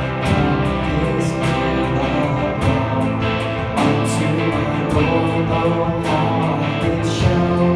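Live gospel band playing an instrumental passage between sung verses: guitar over bass with a steady beat.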